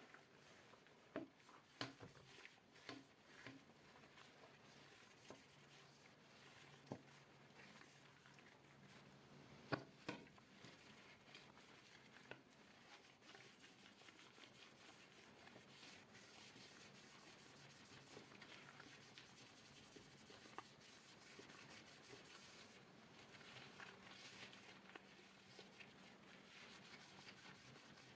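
Faint wiping and rubbing on hard desk objects, with a few light taps and knocks in the first half, the loudest about ten seconds in, then a steady soft rubbing.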